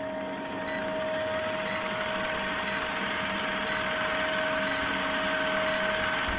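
Old film projector sound effect for a countdown leader: a steady mechanical whirring with fast clattering and a hum, a short blip about once a second as the numbers count down, growing a little louder.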